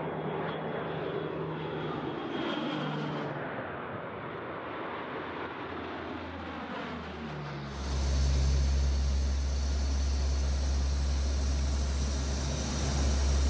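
Lockheed C-130 Hercules turboprop engines as the aircraft passes low overhead, the engine note falling in pitch as it goes by. About eight seconds in the sound changes abruptly to a louder, steady low drone of the engines heard from inside the aircraft.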